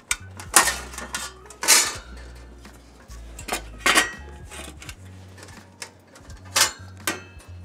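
Sheet-metal panels of a New Direction Stoven folding gas stove-oven clanking and clicking as they are unfolded and slotted together, with several sharp metallic knocks at irregular intervals.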